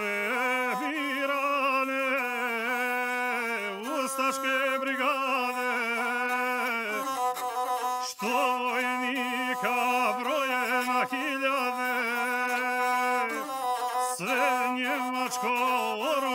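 Gusle, the single-string bowed Balkan folk fiddle, playing a passage that hovers around one note with quick ornamental turns. There is a brief break about eight seconds in.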